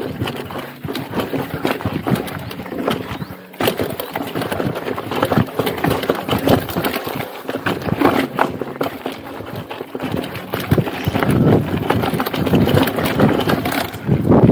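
Mountain bike with a suspension fork clattering down a rocky dirt trail: a dense run of irregular knocks and rattles from the bike as it bounces over stones, with tyre noise on dirt underneath. It grows louder over the last few seconds.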